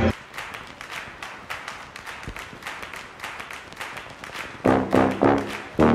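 Background music: a light, quick ticking beat, then loud brass chords come in near the end.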